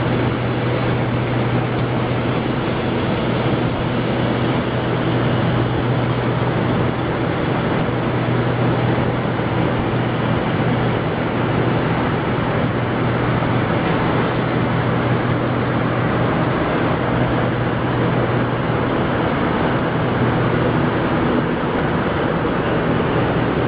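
Nonwoven needle punching production line running: steady, loud machinery noise with a constant low hum underneath.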